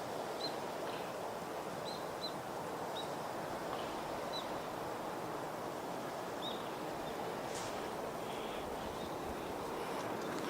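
Steady outdoor background rush with small bird chirps, short and high, coming every second or so through the first part.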